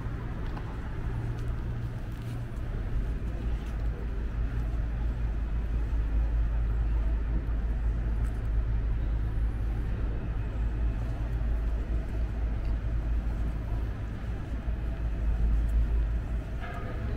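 City street ambience: a steady low rumble of traffic and urban hum, with no distinct events.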